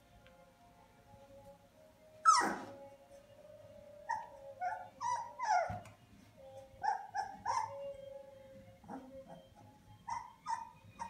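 Young puppies crying: one loud, sharp squeal falling in pitch about two seconds in, then a string of short, high-pitched squeaks and whimpers, with a few more near the end.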